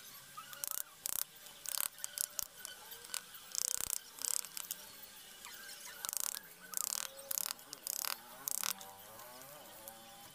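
Wood chisel pared by hand into a teak blank: a series of short, crisp cutting strokes at irregular intervals as shavings curl off.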